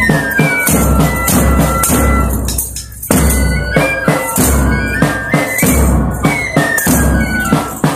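School band of recorders playing a simple melody in unison, with tambourines and drums beating along. There is a short break about three seconds in.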